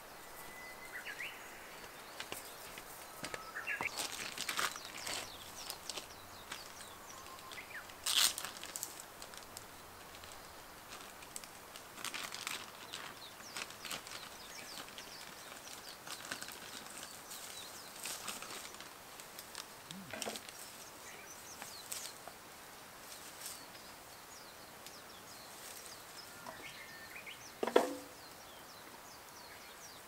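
Quiet rural outdoor ambience: scattered rustling and handling noises, a few short bird chirps, and two sharper knocks, about eight seconds in and near the end.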